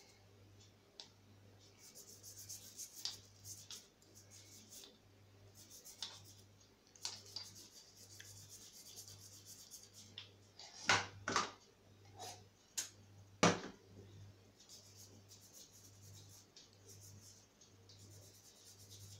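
Toothbrush bristles scrubbing a metal piece with a wet cleaning paste of Coca-Cola and salt, in short repeated rubbing strokes. A few sharper clicks come about eleven and thirteen seconds in.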